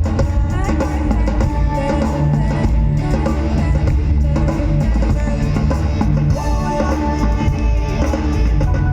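Live rock band playing loudly: drum kit, bass and electric guitar, with some singing.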